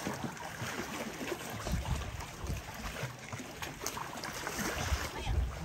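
Wind buffeting the microphone in irregular low gusts over water lapping.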